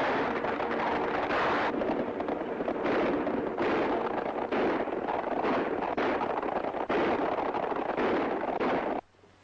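A continuous barrage of gunfire and rumbling in an old western film soundtrack, coming in repeated surges and cutting off abruptly about nine seconds in.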